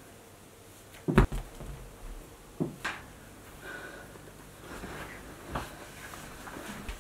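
A few separate knocks and thumps of a person moving about on a sofa and getting up, the loudest about a second in.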